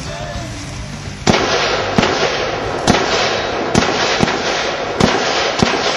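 AR-15-style carbines firing single shots: about seven sharp cracks, roughly a second apart, starting a little over a second in, over a steady hiss.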